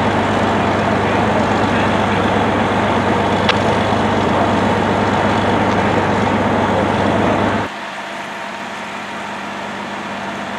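Fire apparatus engine running steadily, a loud low drone that drops abruptly to a quieter hum about eight seconds in.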